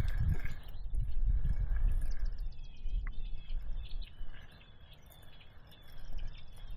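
A small bird calling outdoors, a run of short high chirps repeated two or three times a second through the second half. A low rumble fills the first couple of seconds, then drops away.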